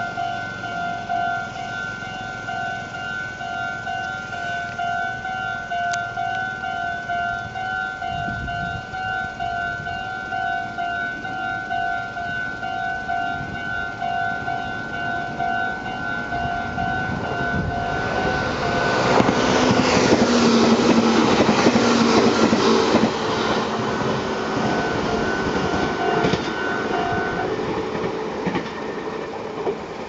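Japanese level-crossing warning bell ringing in a steady, pulsing "kan-kan" while the barriers are down. A little past halfway a Meitetsu electric train passes over the crossing with a loud rumble and wheel clatter. The bell stops near the end, once the train has cleared.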